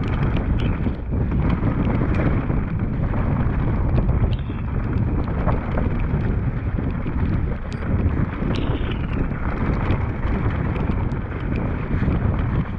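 Wind buffeting the camera microphone over the rumble of mountain bike tyres on a dirt trail descent. Scattered clicks and rattles come from the bike, and a brief falling squeak sounds about four seconds in and again past eight seconds.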